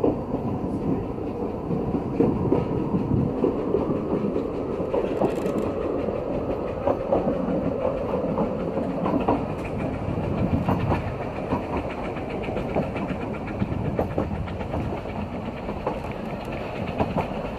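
Narrow-gauge steam train running, heard from one of its carriages: a steady rumble of wheels on the track with frequent short clicks.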